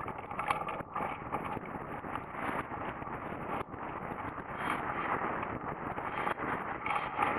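Airflow rushing over the microphone of a camera mounted on a hang glider's control frame during launch and the first seconds of flight. It is a steady rush, with a couple of knocks in the first second during the launch run, and it grows a little louder in the second half as the glider picks up airspeed.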